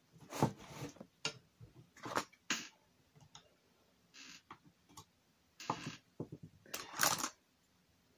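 Irregular light taps and short scrapes of a paintbrush working paint on a palette and canvas, loudest about half a second, two seconds and seven seconds in.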